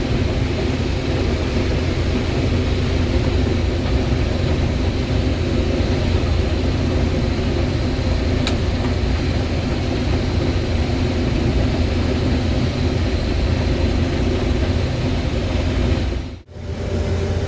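Combine harvester running steadily while harvesting corn: a continuous low engine and machinery drone. The sound drops out briefly near the end.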